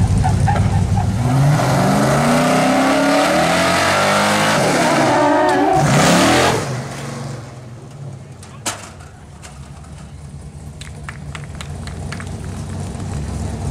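Pickup truck engine revving hard as the truck accelerates, its pitch climbing for several seconds and then falling away abruptly as it stops. Afterwards come a few sharp knocks.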